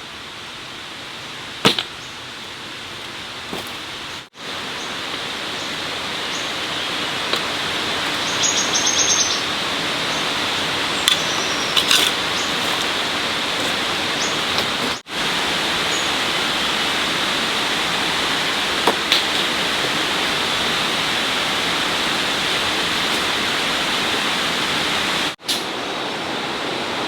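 Steady rushing water noise, with a few light clicks and knocks; it drops out briefly about 4, 15 and 25 seconds in.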